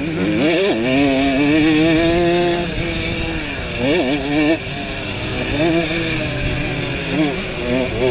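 Simson two-stroke single-cylinder pitbike engine running hard, heard on board. Its revs stay high, dipping briefly and climbing again three times: about half a second in, around four seconds in, and near the end.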